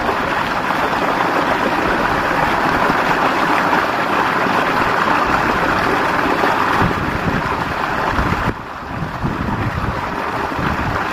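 Water gushing from a water motor's outlet pipe and splashing into a brick tank: a loud, steady rush that drops a little about eight and a half seconds in.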